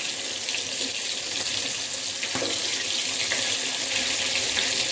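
Maida-coated chicken pieces deep-frying in hot oil in a steel kadai: a steady hissing sizzle with small crackling pops as the oil bubbles around them.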